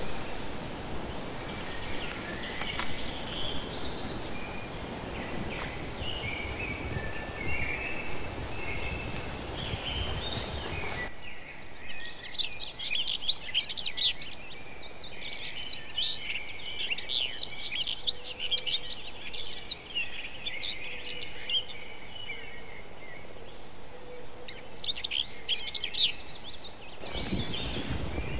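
Small birds chirping and singing: a few scattered calls over a steady low background rumble, then the rumble drops away suddenly and a busy run of quick, high chirps follows, easing off and picking up again near the end.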